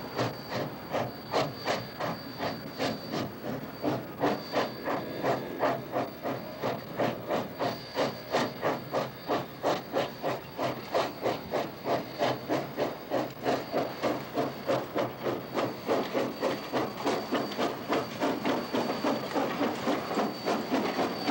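Steam exhaust from FWWR #2248, a 4-6-0 steam locomotive, chuffing in a steady rhythm of about two to three beats a second as it works under way, over a continuous hiss of steam.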